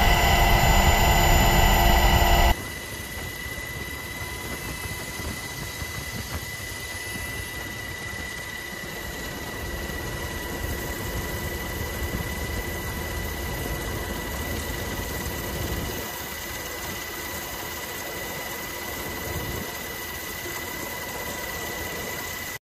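Steady engine drone heard from inside an aircraft's cabin. It is loud for the first two and a half seconds, then cuts to a quieter steady drone with a thin high tone running through it. No blast from the explosion is heard.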